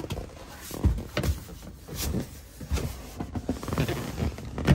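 Fold-out bench of a camper van conversion being unfolded into a bed: cushions and frame shifting, rubbing and knocking into place in a series of dull thumps, the loudest near the end.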